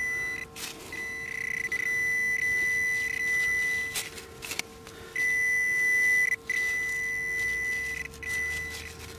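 Handheld metal-detecting pinpointer giving a steady high-pitched beep tone that sounds for stretches of one to several seconds and cuts out briefly between them, as its tip is probed through wet pebbles and sand: it is picking up a buried metal target.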